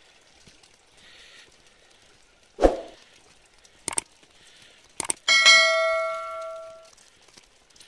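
Subscribe-button animation sound effects: a soft thump about two and a half seconds in, a mouse click at about four seconds and another at five. Then a bell ding rings out and fades over about a second and a half.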